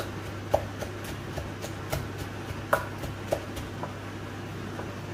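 Wooden pestle pounding in a terracotta mortar: irregular knocks, a few loud ones among lighter taps, over a steady low hum.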